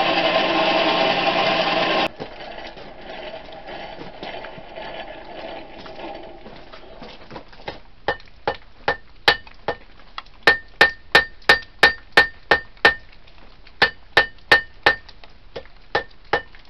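A steady machine drone cuts off about two seconds in. From about eight seconds in, a hand hammer strikes hot tool steel on an anvil, drawing out a knife blade: about three blows a second in runs with short pauses, each blow with a short metallic ring.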